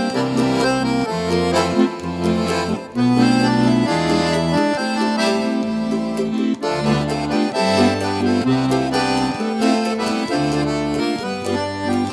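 Giulietti piano accordion playing a choro melody on the right-hand keys over bass notes from the left-hand buttons that change about every half second.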